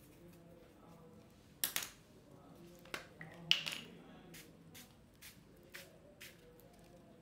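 Two brief hisses of a small pump spray bottle spritzing, about two and three and a half seconds in, among light clicks and taps of a canvas and bottles being handled.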